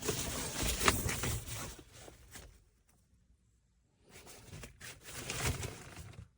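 Rustling and crinkling of a foldable 210T reflective-fabric windshield sun shade being unfolded by hand, with a few light knocks. The handling stops for about a second and a half midway, then resumes.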